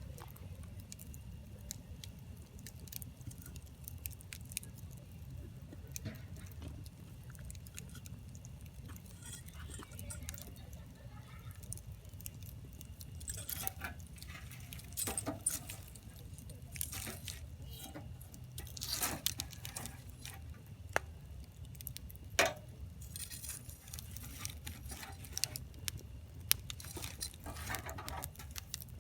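Campfire of firewood crackling, with irregular sharp pops as the wood bursts, a few louder pops through the middle of the stretch, over a steady low rumble.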